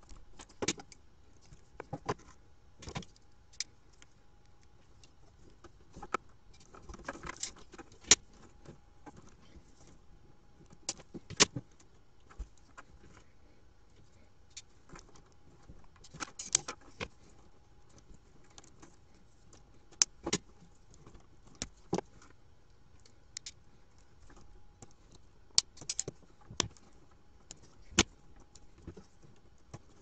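Irregular sharp clicks and snips of hand tools working on wiring: wire cutters trimming wires and a crimping tool closing on Molex crimp pins, with a couple of short stretches of wire and tool rustling.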